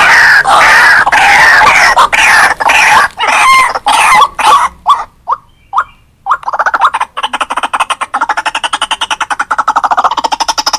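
White-breasted waterhen calling: a loud raucous chattering series that breaks into separate notes and slows, stops briefly about five seconds in, then gives way to a fast run of rapidly repeated notes that builds.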